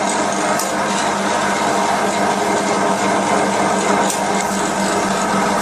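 Suction pump of a hydrodermabrasion facial machine running steadily while its water-dermabrasion pen is in use, a steady hum under an even hiss of suction.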